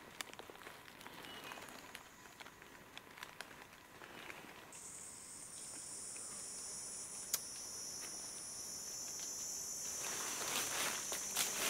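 A shrill, steady insect drone starts about five seconds in and holds. Near the end, dry leaf litter rustles and crunches underfoot.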